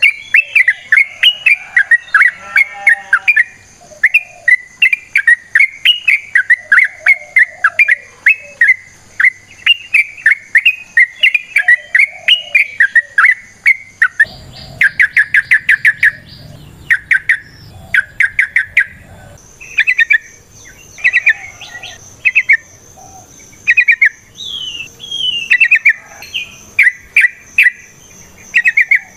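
Yellow-vented bulbul singing a long, rapid run of bubbly, warbling chirps. About halfway through, the song breaks into shorter bursts of notes with gaps between them.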